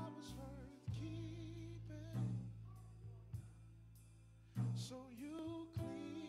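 Slow church band music: held keyboard chords over a sustained bass note, with a wavering melody line and a few drum hits.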